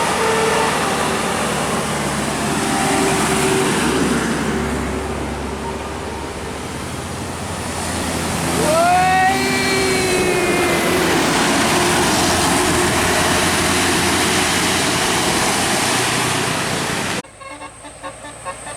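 Tour bus passing in loud traffic noise and sounding its air horn about nine seconds in: a note that slides sharply up, then a lower tone that sags slowly as the bus goes by. The noise drops off abruptly near the end.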